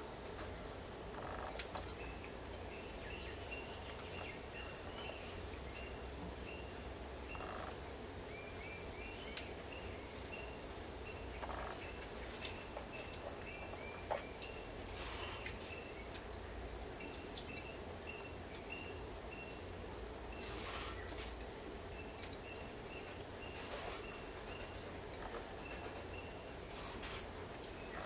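Backyard ambience: a steady high-pitched insect drone, with strings of short repeated chirps throughout and a few sharp clicks scattered across it.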